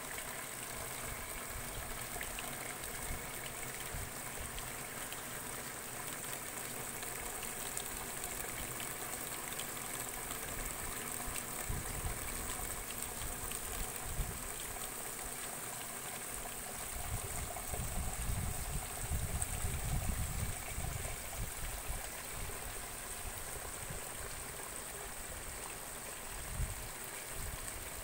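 Water trickling and splashing steadily from the outlet pipes of hydroponic lettuce trays into a drainage gutter. A stretch of low rumbling comes in about two-thirds of the way through.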